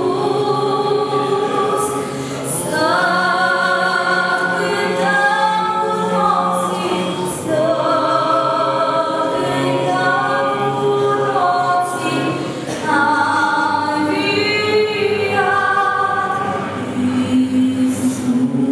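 Unaccompanied singing led by a woman's voice: a slow song of long held notes.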